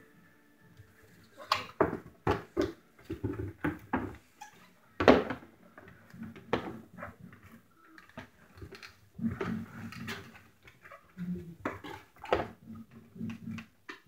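Irregular knocks, clicks and low bumps of a plastic retro mini fridge being handled and turned about, starting about a second and a half in.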